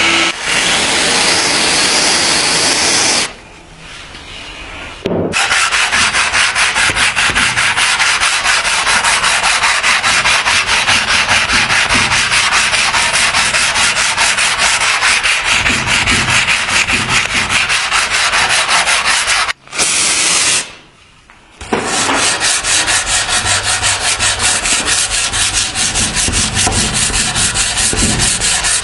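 Abrasive sanding on a knife blade, rubbed back and forth in quick, even strokes. It stops twice for about two seconds, once early on and once around two-thirds of the way through.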